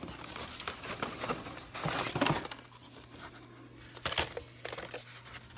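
Carded die-cast toy cars in plastic blister packs being handled and shuffled out of a cardboard box: crinkling and rustling, with a few sharp taps and clacks about two seconds in and again near four seconds.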